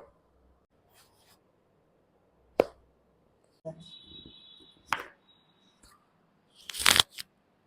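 Joints cracking under chiropractic manipulation. A sharp single crack comes about two and a half seconds in, another near five seconds, and a longer, louder burst of cracking near the end. A faint steady high tone lasts about two seconds in the middle.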